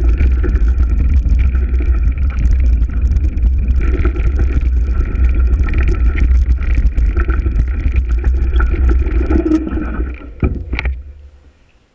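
Breeze blowing through trees and buffeting the microphone with a heavy low rumble. Near the end come a couple of sharp knocks, and the sound drops away.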